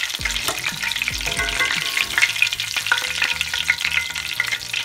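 Vegetable oil frying panko-breaded shrimp in a skillet: a steady sizzle with many scattered pops. The popping has slowed, the sign that the shrimp are nearly cooked.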